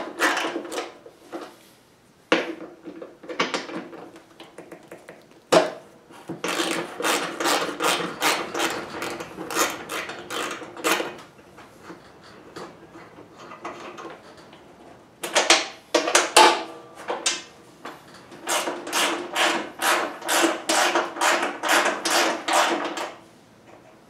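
A hand tool working the fasteners of a snowblower's plastic cover: two long runs of quick, evenly spaced clicks at about three or four a second, with a few sharper single knocks between them.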